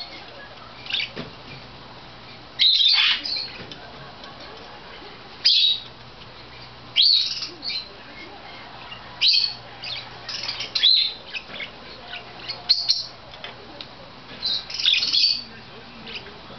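Pet parakeets calling: short, high-pitched chirps and squawks in bursts every second or two.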